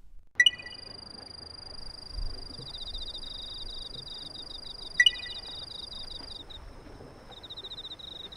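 Crickets and other night insects calling: a steady high whine and a fast pulsed chirping that stops and starts. Two sharp, brief clicking pings with a short ring stand out, one just after the start and one about five seconds in.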